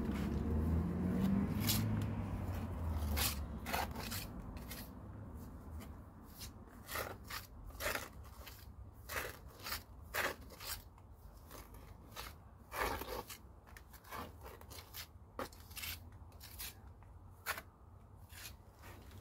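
Steel pointing trowel scraping and tapping as hot lime mortar made with quicklime and sharp sand is cut off a hawk and pressed into brick joints, in short irregular strokes. A low rumble fades out over the first few seconds.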